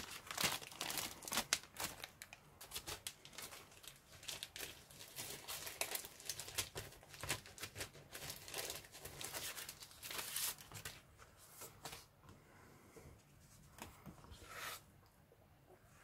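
Clear plastic decal bag crinkling and crackling as it is handled and pulled open and the decal sheet is slid out, with dense crackles that thin out a few seconds before the end.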